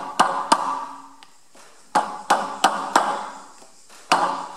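Small hammer tapping a screwdriver against the steel lock tabs on the fan hub bolts, bending the tabs straight to free the bolts. The metal rings briefly at each strike, about eight taps in bunches of two to four.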